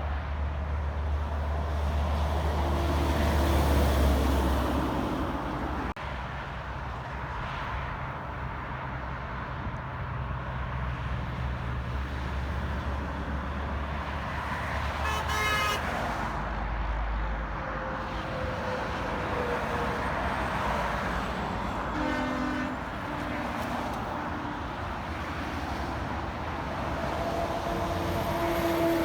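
Road traffic passing, with a heavy vehicle's engine rumbling by in the first few seconds. Near the end a horn sounds several steady notes together.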